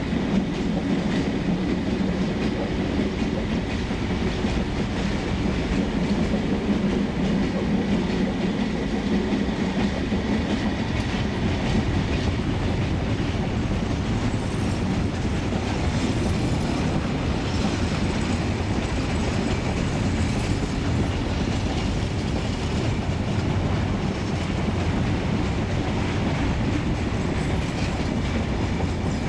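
A long freight train of aggregate hopper wagons rolling past, its wheels clattering steadily over the rail joints. A low diesel drone from the receding locomotive fades after about ten seconds, leaving the wagons' rumble and clatter.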